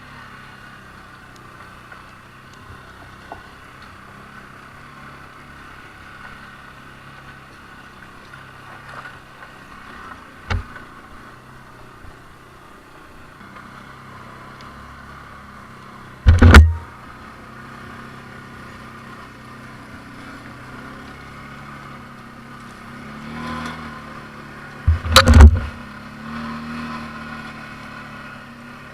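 ATV engine running steadily at low revs. Two short, loud thumps come about halfway through and again near the end.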